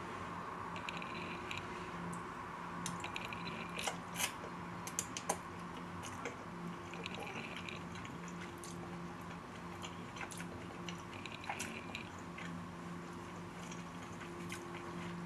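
Close chewing of a mouthful of spaghetti: small wet mouth clicks and smacks, scattered and irregular, over a faint steady hum.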